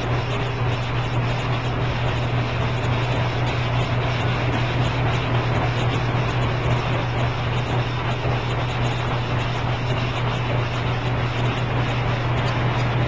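A steady low hum over a constant rushing noise, unchanging throughout, with no distinct strokes or impacts.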